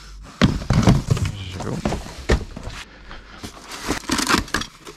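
Cardboard and packing paper rustling and crinkling, with scattered knocks as plastic supplement tubs are handled in a box. Near the end a taped cardboard carton is worked open.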